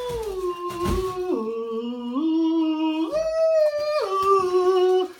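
A man singing a wordless tune in long held notes, the pitch stepping down, then up high, then back down, with a brief knock about a second in.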